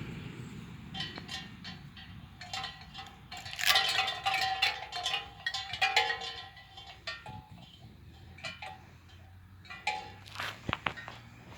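Metal bells on a noise-training toy clinking and ringing in irregular strikes, loudest about four and six seconds in.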